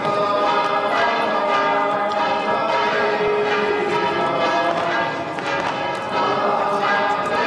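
Church bells ringing a festive peal for a feast-day procession: several bells struck in quick succession, their tones overlapping and ringing on.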